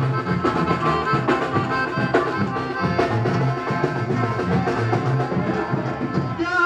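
Mexican brass band (banda) playing an instrumental passage: horns over drums and a steady bass pulse.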